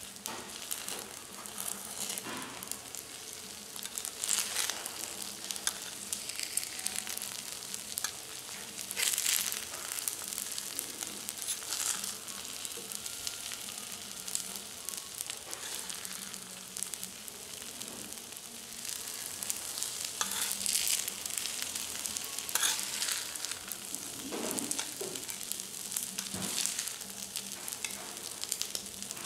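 Fried rice sizzling on a hot teppan griddle, stirred and scraped with a metal spatula, with frequent short scrapes over the steady sizzle.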